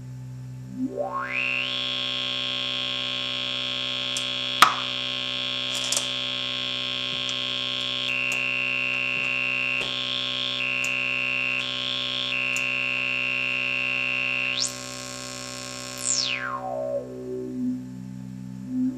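Buzzy analog synthesizer tone through a DIY MFOS 12 dB state-variable filter. A bright resonant peak sweeps up about a second in and holds high, steps back and forth between two pitches, then jumps higher. Near the end it sweeps back down and starts rising again, with one sharp click about four and a half seconds in.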